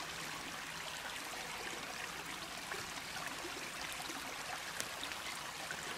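Steady rushing of a small forest stream.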